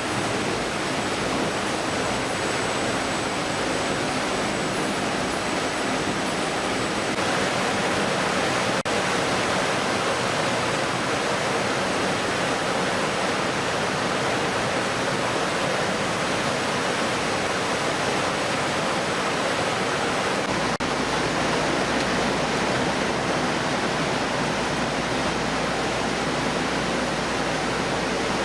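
Steady rushing noise with no distinct events, its tone shifting slightly a few times.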